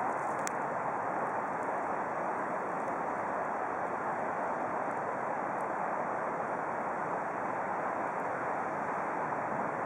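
Steady rushing of river water pouring through white-water rapids.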